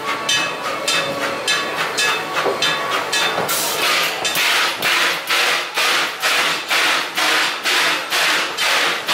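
Steam locomotive Mississippi of the Western River Railroad giving off rhythmic steam chuffs with hiss, about two a second, growing much louder about three and a half seconds in as the locomotive draws close.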